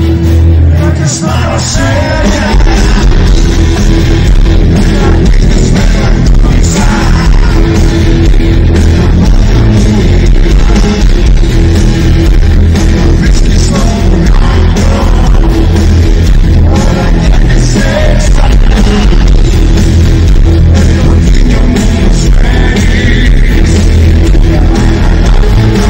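Live pop-rock band playing loudly, with a male singer's vocals over a heavy bass and drum beat; the bass fills in fully about two seconds in.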